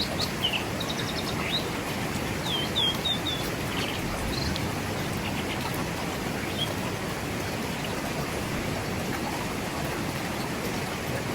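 Forest river flowing with a steady rush of water. Birds chirp with short, quick notes over it in the first few seconds, then only a few faint ones.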